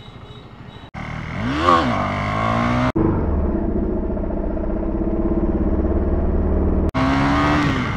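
Motorcycle engine revving up, its pitch rising and then falling, then running steadily at speed. The sound breaks off sharply about one, three and seven seconds in.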